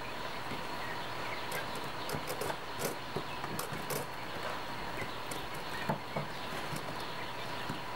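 Quail chicks moving and pecking about in wood-shaving bedding: irregular soft clicks and taps over a steady hiss and a faint constant tone.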